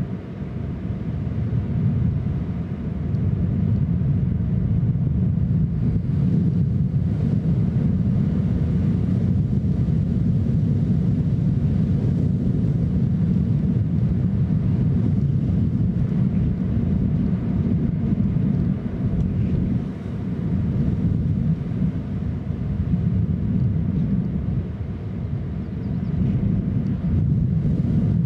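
Wind buffeting the microphone: a loud, steady low rumble that swells about two seconds in and dips briefly a couple of times.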